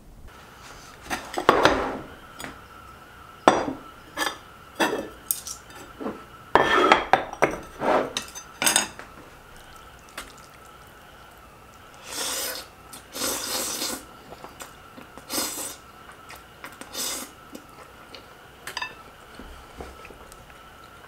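Chopsticks knocking and scraping against a stoneware bowl while thick udon noodles are tossed and mixed: a run of sharp clinks in the first half, then a few longer, softer scraping spells.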